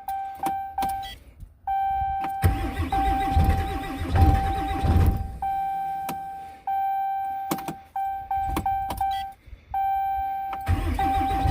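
Dodge pickup's diesel engine cranking over in extreme cold, a rhythmic churning for a few seconds from about two seconds in and again near the end, without catching and running: a cold no-start with the glow plugs not working. A steady dashboard warning chime sounds on and off throughout.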